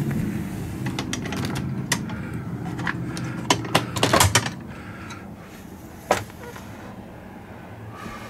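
Clicks and knocks from an open RV refrigerator's door and plastic bins being handled. The loudest cluster comes about four seconds in, with a single knock a couple of seconds later, over a steady low hum.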